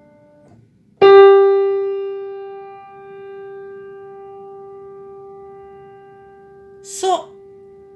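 A single piano note, around the G above middle C, struck once about a second in and left to ring, dying away slowly as a quiz note to be named by ear. A brief spoken syllable cuts in near the end.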